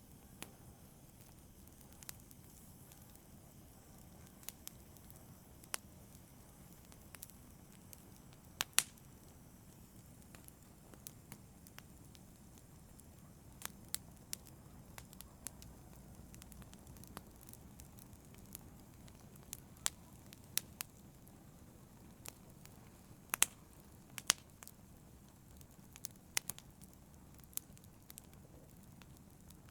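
Wood fire in a fireplace crackling faintly: irregular sharp pops and snaps, some in quick pairs, over a low steady rumble of the burning logs.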